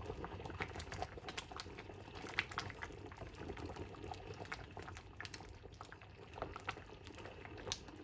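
Pot of cocoyam porridge boiling, bubbling with irregular small pops as the cocoyam cooks down toward a puree.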